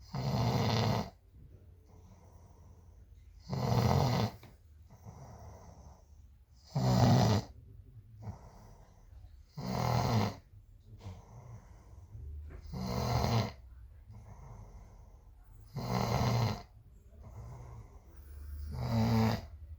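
Heavy snoring: a loud snore about every three seconds, seven in all, with quieter breathing between.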